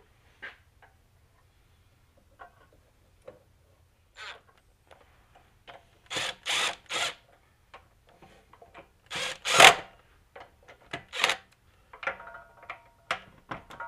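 Cordless power driver running cylinder-head bolts into a small engine in short bursts: three quick spins about six seconds in, a longer spin of about a second later, and one more after it. Near the end there are sharp metallic clicks as a hand wrench works on the bolts.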